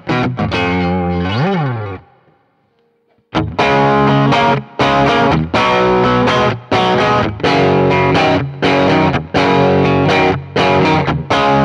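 Telecaster-style electric guitar with Fralin Blues Special pickups, played through an overdriven Marshall amp. A neck-pickup phrase ends in a bent note that dies away. After about a second of near silence, bridge-pickup chords are strummed in a steady, chopped rhythm.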